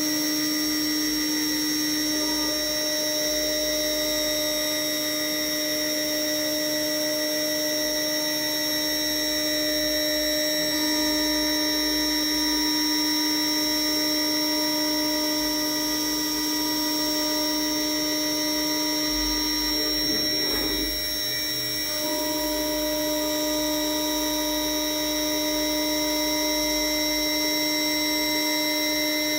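CNC router spindle running steadily with a whine made of several held tones as it carves fine lines into birch plywood with a 0.5 mm conical-tip bit. About twenty seconds in the sound briefly drops and shifts in tone, then returns to the same steady whine.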